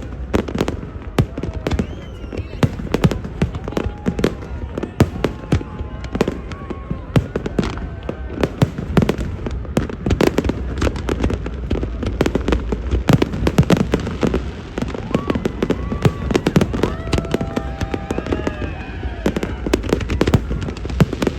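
Fireworks display going off in rapid, dense volleys of bangs and crackles, several a second, with crowd voices and shouts mixed in.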